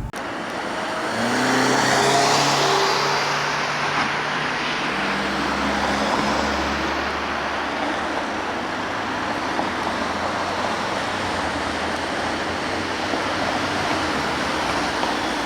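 Cars passing on a road, engines and tyre noise swelling to their loudest about two seconds in, then a steady rush of traffic.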